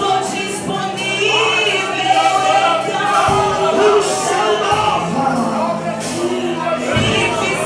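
Christian worship song (louvor) playing, with a sung vocal line over sustained keyboard-like backing chords.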